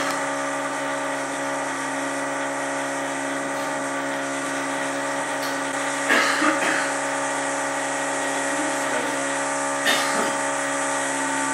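Electric drill from a nearby apartment, running without a break as a steady whine over a low hum. A few brief clinks come through about six seconds in and again near ten seconds.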